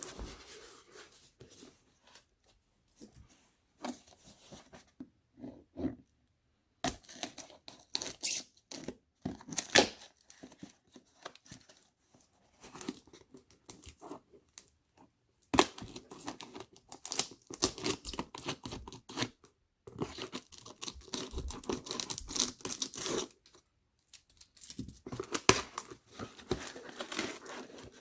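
Packaging being torn open and crinkled by hand, in irregular bursts separated by short pauses.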